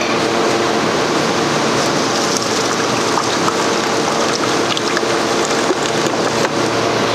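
Liquid vanilla soft-serve mix pouring in a steady stream from a stainless steel pan into the steel hopper tank of a soft-serve ice cream machine, over a steady low hum.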